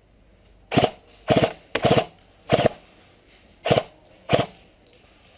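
Airsoft rifle firing about half a dozen short bursts in quick succession, each a fraction of a second long and loud, close to the microphone.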